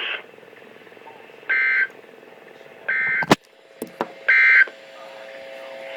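EAS end-of-message data tones: three short, identical, buzzy digital bursts about a second and a half apart, marking the end of the alert. Between the second and third bursts come a few sharp clicks, the first the loudest sound here, over a faint steady hum.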